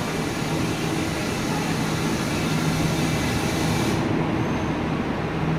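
Conventional passenger coaches rolling slowly past on the rails as the train pulls into a station: a steady rumble of wheels on track with a low hum.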